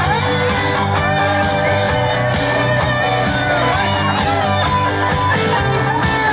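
Live band music over a PA system, guitar prominent, with sustained chords and a melody that bends in pitch.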